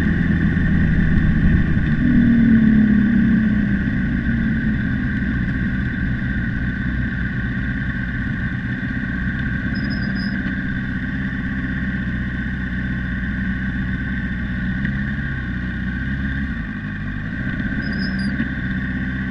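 Sport motorcycle engine heard from its own onboard mount, settling down about two seconds in, then idling steadily.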